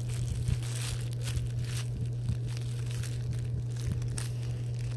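Irregular crinkling and rustling of a plastic bag and a foam squishy toy being handled and squeezed close to the microphone, over a steady low hum.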